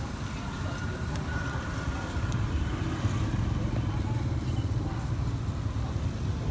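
Steady low rumble of nearby road traffic, growing louder about two seconds in.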